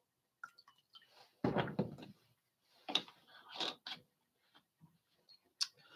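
Bottles being handled on a table: a few soft knocks and clicks, a louder knock about a second and a half in, and a sharp click near the end.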